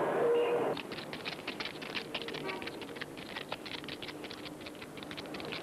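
A short held music phrase breaks off about a second in, then dense, irregular crackling clicks, like the surface noise of a worn old soundtrack.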